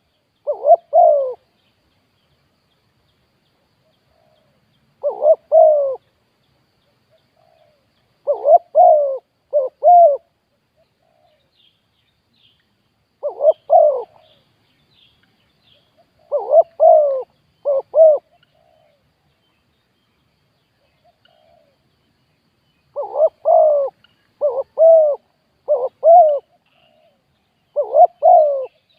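Spotted dove cooing close by: loud phrases of two to four coos, repeated every few seconds.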